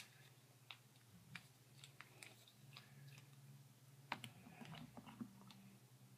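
Faint, scattered clicks and taps of a nail polish bottle and its screw cap being handled as the bottle is opened and the brush drawn out, with one sharper click right at the start.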